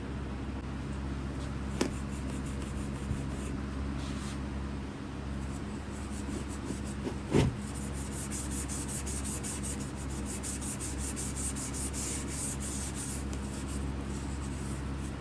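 Scraper rubbing and scraping stripper-softened paint off a metal water jug, in quick repeated strokes that get busier past the middle, with a single knock about seven seconds in.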